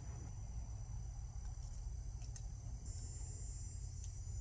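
Crickets chirping steadily over a low, steady hum, with a few faint clicks.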